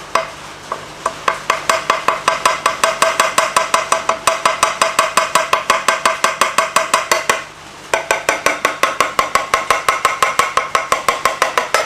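A pane of scrap aquarium glass being tapped rapidly along its scored line to run the cut: quick even taps, about five a second, each ringing briefly. There are two long runs with a short pause between them.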